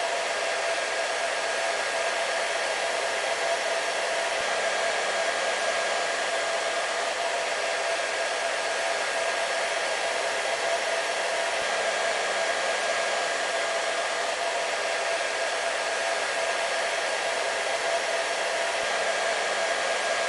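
Hair dryer running steadily: a constant airy rush with a faint steady whine, unchanging throughout.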